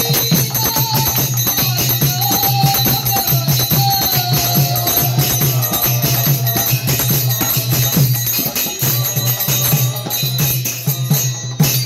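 Two double-headed barrel drums played by hand in a fast, dense rhythm with small hand cymbals jingling continuously over them.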